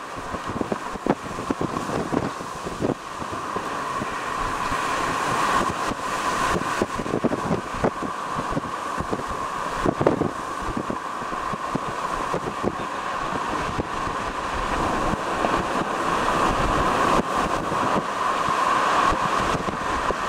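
Strong wind rushing over the microphone, with frequent low thumps of gusts buffeting it, growing louder toward the end.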